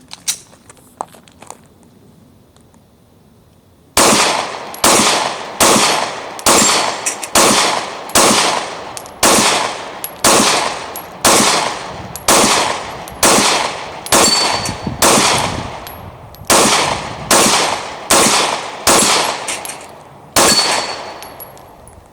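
A Gen 4 Glock 19 9mm pistol with a stainless threaded drop-in replacement barrel firing a full extended magazine of 18 rounds in steady slow-fire, about one shot a second, each report trailing off in echo. The shots come without a break or stoppage, as the pistol feeds and ejects every round cleanly.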